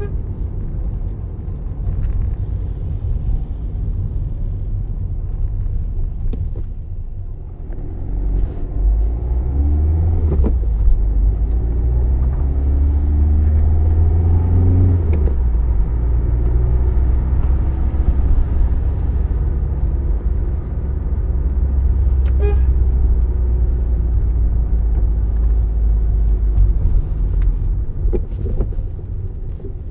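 Car driving on a road: a steady low engine and road rumble. The engine pitch climbs as it accelerates about a third of the way in, then settles into steady cruising.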